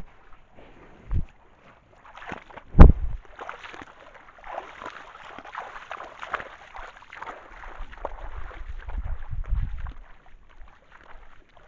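Elk wading in the pond close to the trail camera, water splashing and sloshing around its legs. There is a small thump about a second in and a loud knock about three seconds in. The splashing dies away near the end.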